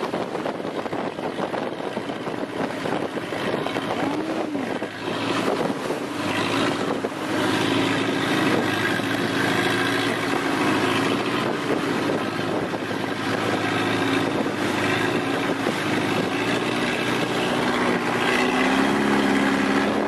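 Long-tail boat's engine running steadily under way, with wind on the microphone and water rushing past the hull. The engine note gets louder and fuller about six seconds in.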